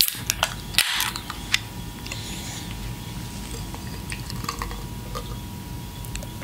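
A can of pilsner handled, with a few sharp clicks and a short hiss in the first second and a half, then beer poured from the aluminium can into a glass, fizzing.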